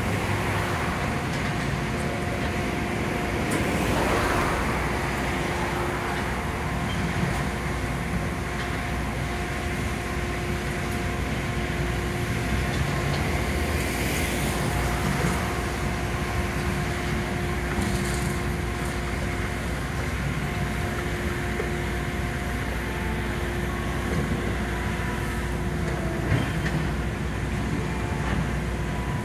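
High-reach demolition excavator running steadily, its diesel engine and hydraulics giving a constant drone with a steady whine, while it pulls apart brickwork; a few brief louder rushes of breaking and falling masonry stand out.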